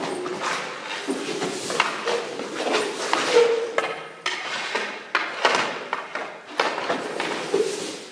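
Hockey goalie skating post to post: a run of skate-blade scrapes on the rink surface mixed with knocks and thuds of leg pads and stick, ending with the pads dropping and sliding into a butterfly.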